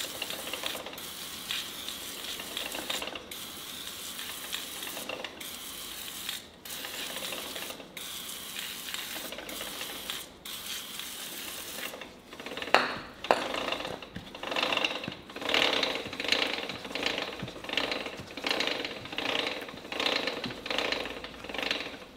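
Aerosol chain lube hissing onto an ATV drive chain in long sprays with short breaks. After about twelve seconds this gives way to a louder rhythmic clicking, about twice a second, from the chain and sprockets as the raised rear wheel is turned.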